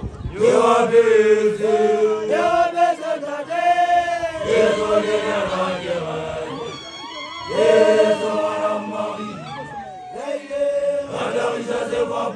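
Group of newly initiated Basotho young men (makoloane) chanting together, unaccompanied, several voices with held notes and sliding pitches, dipping briefly about ten seconds in.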